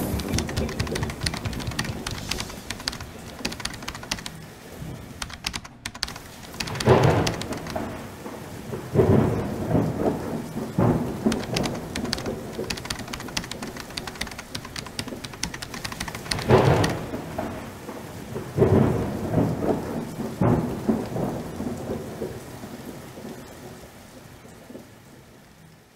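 Rain falling steadily, with several heavy rolls of thunder swelling up through it, fading out near the end.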